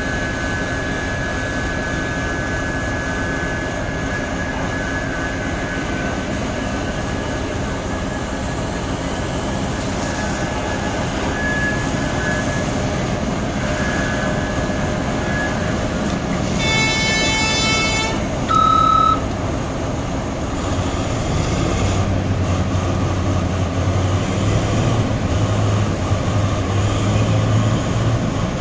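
Diesel engine and hydraulics of a large Komatsu mining excavator running steadily under load as it digs rock. A brief horn blast sounds a little past halfway, followed by a short, louder single-tone beep. The engine then settles into a deeper, louder rumble toward the end.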